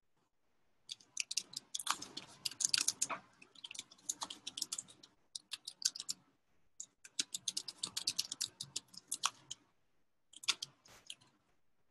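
Computer keyboard typing in quick runs of keystrokes: two long flurries separated by a short pause, then a brief burst near the end.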